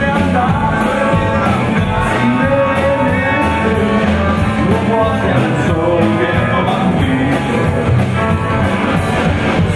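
Rockabilly band playing live: upright bass, electric guitar and drum kit keeping a steady beat, with singing over it.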